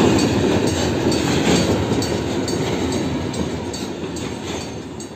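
Container freight train wagons passing at speed: wheels rumbling with repeated sharp clacks over the rail joints. The sound grows gradually quieter toward the end.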